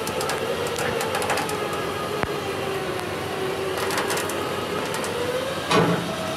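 Winch motor whining steadily under load as it drags the heavy truck up onto the trailer. The pitch sags slowly and recovers. Scattered clanks and a louder clunk come near the end.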